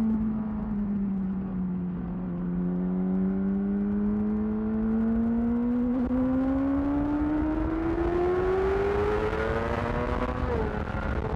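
2008 Yamaha R6 inline-four sport bike through a Termignoni aftermarket exhaust, accelerating under load: the engine note sags a little, then rises steadily for several seconds. Near the end the pitch drops suddenly, as at an upshift, and it carries on pulling.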